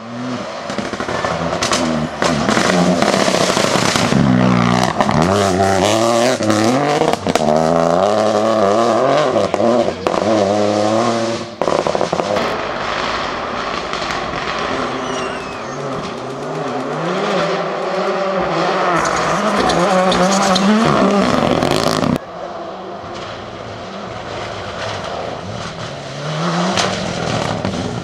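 Turbocharged four-cylinder rally cars, among them a Ford Fiesta rally car and a Mitsubishi Lancer Evolution, driven flat out one after another. Their engines rev high and climb repeatedly through the gears, with sharp cracks over the top. The sound changes abruptly twice as one car gives way to the next.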